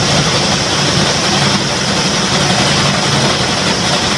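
Heavy machinery engine idling steadily, a constant low hum with no change in speed.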